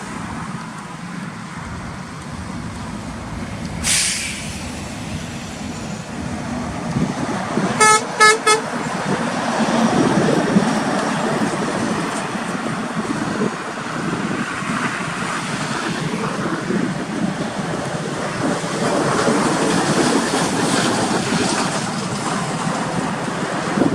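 Vehicle horn giving three quick toots about eight seconds in, over steady traffic noise. A short hiss about four seconds in.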